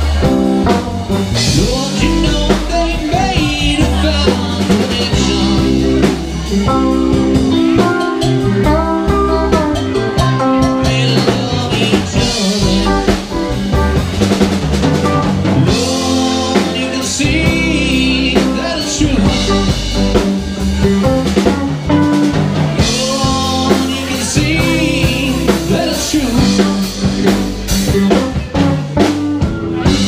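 Live band playing a song: electric guitars, bass guitar and a drum kit, with a man singing lead into the microphone.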